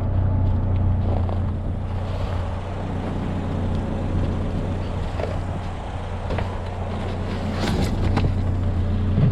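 GMC Sonoma pickup running, heard from inside the cab as a steady low engine and road drone. A few sharp clicks come near the end.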